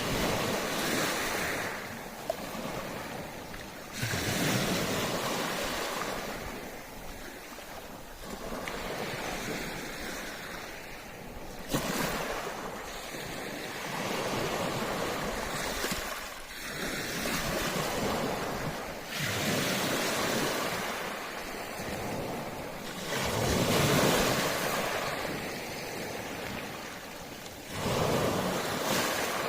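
Ocean waves breaking and washing up a beach, a surge of surf every few seconds, some of the breaks setting in suddenly.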